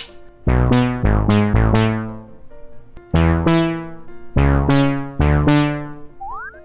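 Synth bass playing two short runs of low, sharply struck notes, each note dying away, with a brief pause between the runs.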